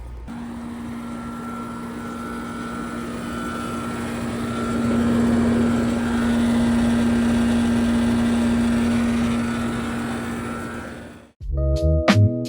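Heat pump outdoor unit running in heat mode: a steady compressor hum under the condenser fan's rush, growing louder about four to five seconds in and fading away near the end, just after the unit has come out of a defrost cycle.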